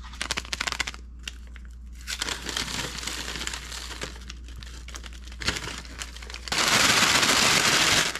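McShaker paper fry bag and seasoning packet crinkling and crackling as they are handled, then from about six and a half seconds in a loud, continuous rustle as the bag is shaken to coat the fries in ramen seasoning.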